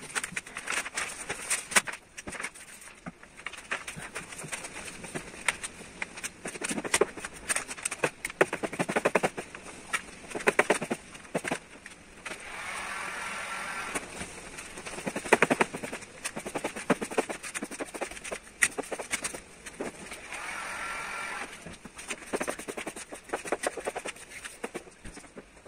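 Crackling and rustling of carbon-fibre vinyl wrap film being handled, lifted and smoothed by hand on a car roof. Two longer rasping sounds of about two seconds each come about halfway through and again near the end.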